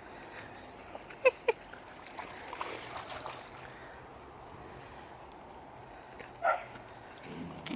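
A dog barking: two quick short barks about a second in, then one more later.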